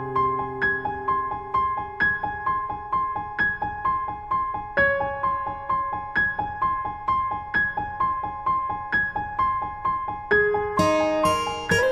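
Background music: a gentle piano or electric-piano pattern of repeating notes, about three notes a second, with brighter, higher notes coming in near the end.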